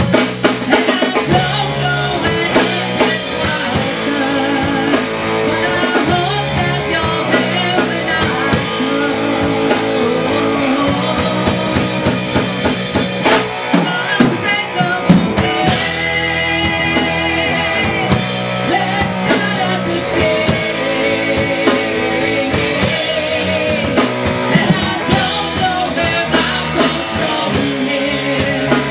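Live rock band playing a song: electric guitar and drum kit, with a woman singing lead.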